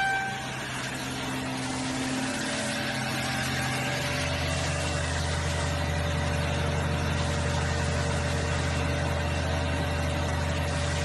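Woodworking machine running with a steady low hum, which grows louder and fuller about four seconds in.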